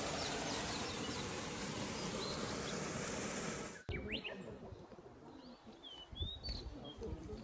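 Steady rush of waterfall water, with small birds chirping faintly over it. A little under four seconds in it cuts off abruptly to a quieter stretch of birdsong: short whistled calls that rise and fall.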